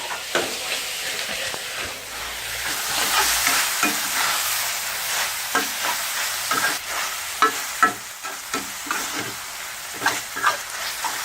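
Ground pork and Thai basil sizzling in a hot pan while being stirred, with repeated short clicks and scrapes of the utensil against the pan.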